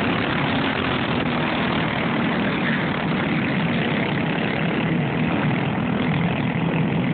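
Several racing go-kart engines running together as the pack laps the dirt oval, a steady blended engine noise with no let-up.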